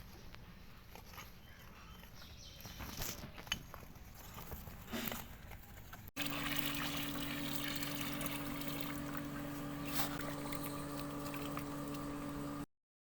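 Water pouring, with scattered small clicks; after a sudden cut about six seconds in it runs louder and steadier with a low hum underneath, then cuts off near the end.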